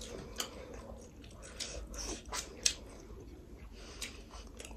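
Sounds of people eating: chewing, with small scattered clicks and taps of food and dishes, and one sharper click about two and a half seconds in.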